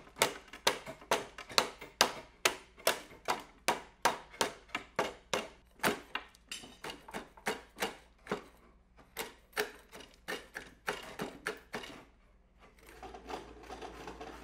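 A wide wood chisel chipping out the waste between saw kerfs in a softwood board, a sharp crack about two to three times a second as chips split away. Near the end it changes to a steady scraping as the chisel pares the bottom of the notch smooth.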